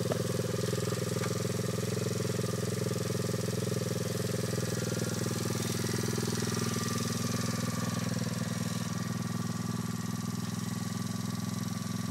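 2010 Orion 110 cc pit bike's four-stroke single-cylinder engine idling steadily at an even pitch.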